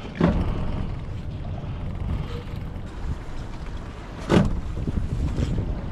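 Steady low rumble aboard a small fishing boat, with two sharp knocks about four seconds apart, the first just after the start.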